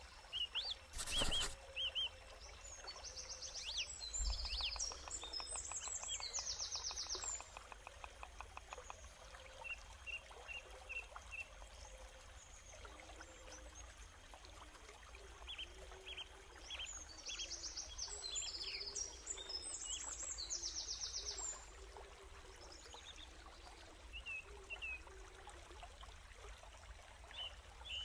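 Forest birds chirping, with bursts of fast high trills and short repeated calls. There is a single short thump about a second in.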